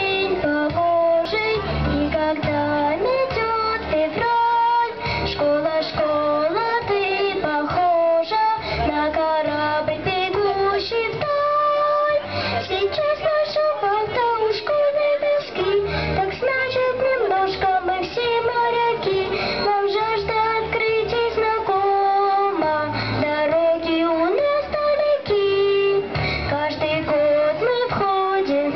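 A girl singing a song over a backing track with a steady beat and bass.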